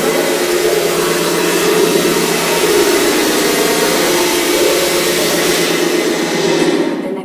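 i-nstruments SX-I MK2 effector/synthesizer putting out a steady, dense electronic noise with a buzzy drone underneath while its knobs are turned. The high part fades near the end, and then the sound cuts off.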